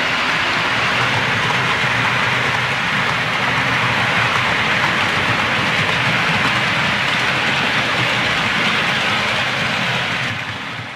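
OO scale model freight wagons running along the track: a steady rushing rattle of wheels on rail, fading away near the end.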